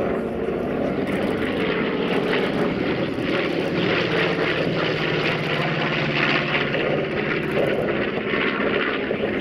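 North American B-25 Mitchell's twin Wright R-2600 radial engines and propellers running in a steady drone as the bomber flies past overhead.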